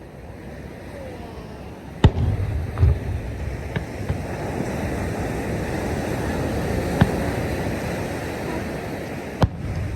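Distant fireworks: a handful of sharp bangs, the loudest about two seconds in and others near three, seven and nine seconds in, over a steady rushing noise that builds through the middle.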